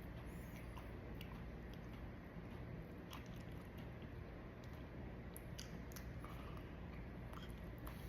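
Faint chewing of a fresh hot chili pepper, with small wet clicks and crackles at irregular moments over a steady low room hum.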